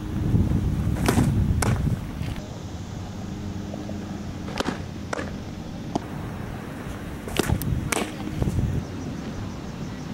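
Softball fastball pitching: sharp leather pops of the ball smacking into a catcher's mitt, several times, some in close pairs about half a second apart. Wind rumbles on the microphone in the first two seconds.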